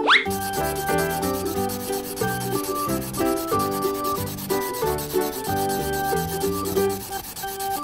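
Thick felt-tip marker rubbing steadily over paper as it inks over drawn outlines, a continuous scratchy hiss, over light background music. A short rising swish comes at the very start.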